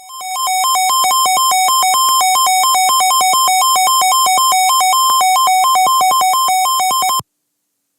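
Emergency alert attention tone: a loud, harsh electronic tone that switches rapidly back and forth between two pitches for about seven seconds, then cuts off abruptly. It signals that a new severe thunderstorm warning is about to be read.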